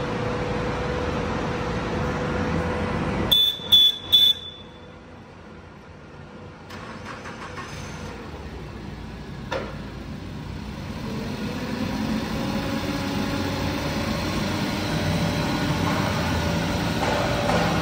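Cat 2C5000 forklift engine running, with three short high-pitched beeps about three seconds in. The engine then drops quieter and builds back up, growing louder with a slowly rising pitch as the mast is raised.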